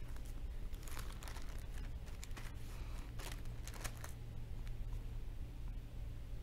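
Thin Bible pages being leafed through by hand: a string of soft paper rustles and flicks, one every second or so, over a low steady hum.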